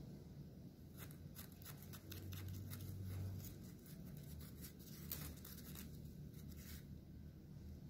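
Faint scratchy scraping of a wooden stick spreading Nutella inside a wafer cone: a run of short scratches from about a second in to near the end, over a low steady hum.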